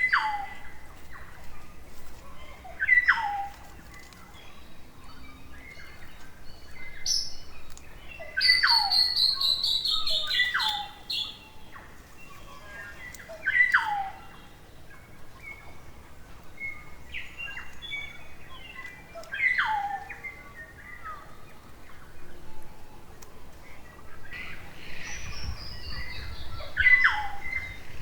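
New Zealand kaka calling: a series of clear whistled notes, each sliding sharply down in pitch, repeated every few seconds, with a longer, higher ringing call a little over a third of the way in.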